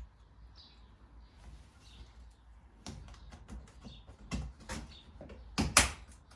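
Faint high bird chirps in the first second, then a run of sharp knocks and clatters from about halfway. They grow louder, with the strongest pair of strikes near the end, like a board being handled and knocked into place.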